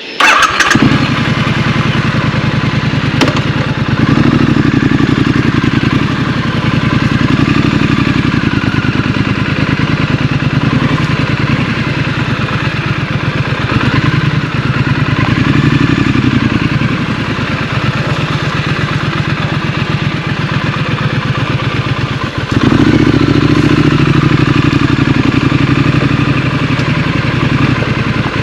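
Scrambler motorcycle engine under way, rising and falling with the throttle, with a brief drop about 22 seconds in before it pulls harder and louder again. A light clatter runs under the engine.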